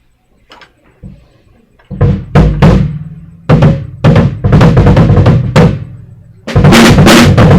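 Small mini drum kit played live: a floor tom struck from underneath by an inverted bass drum pedal to act as the kick, plus snare and stacked cymbals. Separate heavy drum strokes start about two seconds in, and at about six and a half seconds the playing turns into a dense groove with cymbals.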